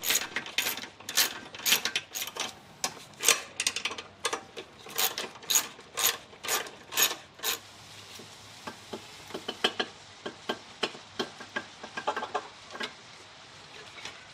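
3/8-inch socket ratchet clicking as it backs out the bolts fastening a lawn mower carburetor to the engine: a quick run of sharp, loud clicks, turning fainter and more scattered about halfway through.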